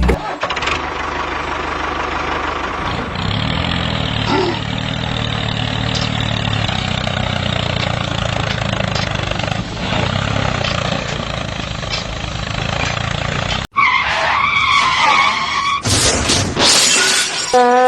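A small motor running steadily with a low hum, cutting off suddenly about 14 seconds in. Wavering pitched sound effects follow, and then music.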